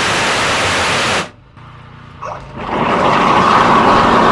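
Pressure-washer water jet hissing for about the first second, then cutting off. After a short lull, a drain-jet hose fed into the blocked gully pipe starts up: a steady rushing water noise as the jet blasts silt out of the pipe.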